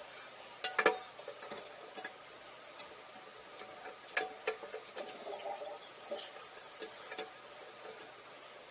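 A few sharp clicks and light knocks of hard objects being handled, spread out with pauses; the loudest pair comes about a second in.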